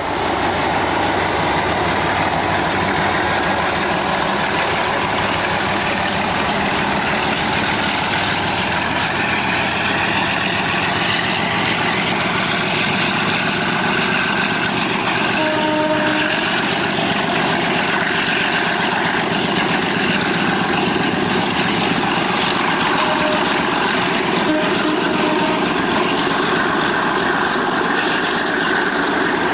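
MLW MX627 diesel-electric locomotive running steadily at a station, a continuous engine note with no change in pace. A short, thin pitched tone sounds briefly about halfway through.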